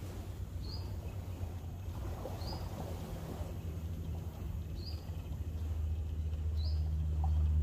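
A low, steady motorboat engine hum that grows louder over the last couple of seconds. A bird repeats a short high chirp about every two seconds.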